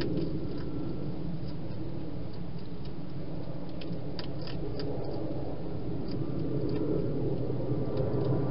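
Scattered small clicks and crunches of a hedgehog eating from a bowl inside a plastic feeding box, with a quick run of them about halfway through, over a steady low rumble.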